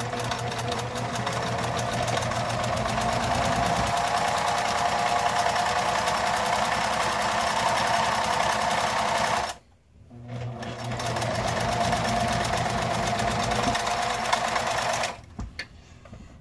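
Electric household sewing machine stitching a fabric seam, a fast, even rattle of the needle. It stops briefly about ten seconds in, runs again, then stops about a second before the end.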